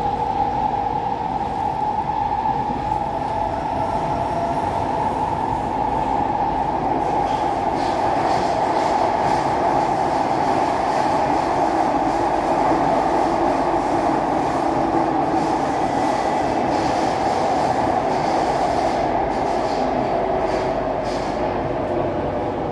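Interior noise of an SMRT C151A metro train car running along the line: a steady rumble and rail noise with a strong mid-pitched hum. It grows a little louder over the first several seconds, then holds steady.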